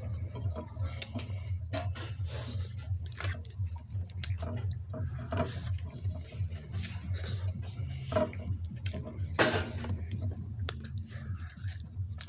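Wet, squishy eating sounds from thin, runny khichuri: irregular clicks, smacks and slurps, over a steady low hum.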